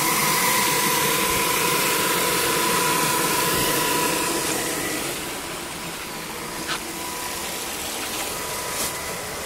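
Micro-hydro turbine and generator running: a steady rushing noise with a steady high whine, the rush easing off about five seconds in. A couple of faint clicks near the end.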